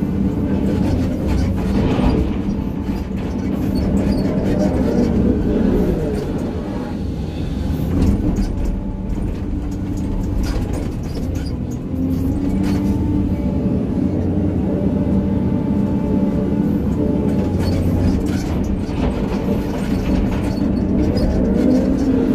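Hydraulic excavator's diesel engine running continuously while it digs and grades, its pitch rising and falling as the hydraulics take load, with knocks and scrapes scattered through from the bucket working soil and stone.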